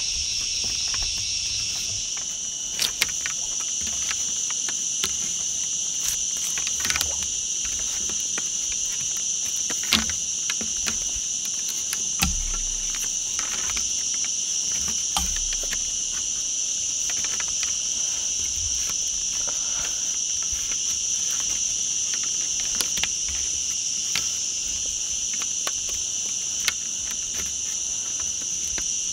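A steady, high-pitched chorus of insects, with scattered sharp clicks and knocks over it.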